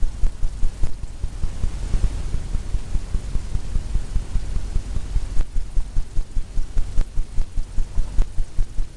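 Blender brush tapped against a stretched canvas: an even run of low, soft thumps about three a second.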